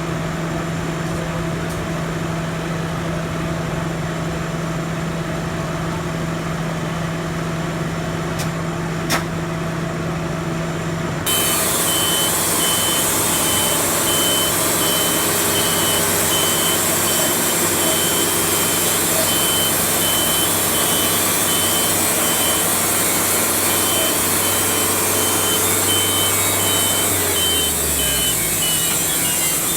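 Machinery engine running steadily. After an abrupt change to a louder, noisier sound, an engine runs with a high-pitched beeping repeating throughout, and the engine winds down near the end.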